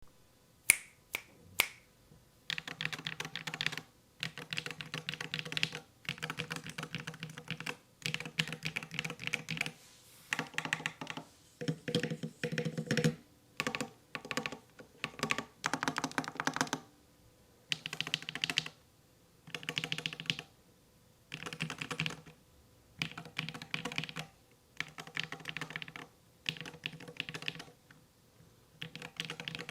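Typing on a stock Luminkey Magger68 Professional HE keyboard with Gateron Magnetic Jade Pro magnetic switches. It opens with three single key presses, then runs in bursts of rapid keystrokes a second or two long, with short pauses between them.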